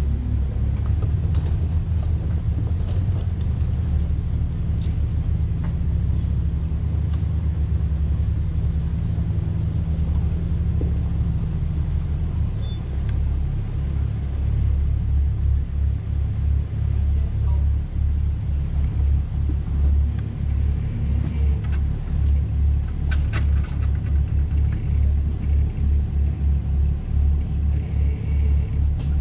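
Off-road SUV engine and drivetrain rumbling low and steady at crawling speed on a rough dirt trail. The rumble turns uneven and pulsing about halfway through, with a few sharp clicks later on.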